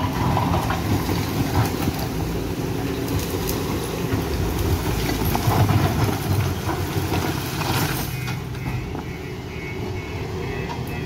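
JCB 3DX backhoe loader's diesel engine working under load as its front bucket pushes brick and stone rubble, with stones knocking and scraping along. The engine eases off about eight seconds in.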